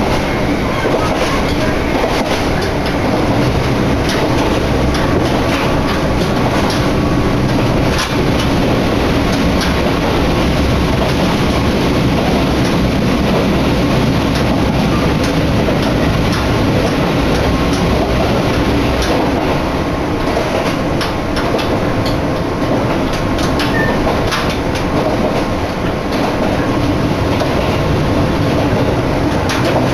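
Electric commuter train running along the line, heard from inside the passenger car: a steady rumble of wheels on rail, with scattered sharp clicks as the wheels pass rail joints.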